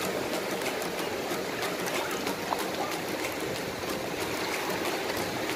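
Small waves washing in over shallow sand: a steady rush of water.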